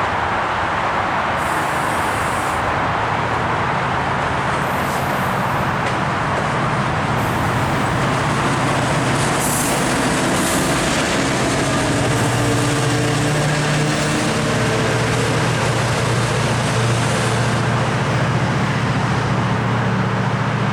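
GO Transit diesel commuter train running at the station platform. A dense rumble gives way to a steadier low engine drone that strengthens from about halfway, with a few short high hisses along the way.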